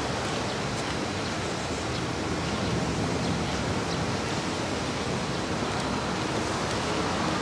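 Strong wind blowing across the microphone outdoors: a steady rushing noise with no break.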